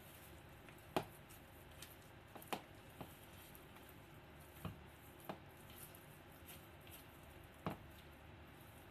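Spatula stirring and folding thick cake batter in a mixing bowl, faint, with about six sharp taps of the spatula against the bowl spaced irregularly.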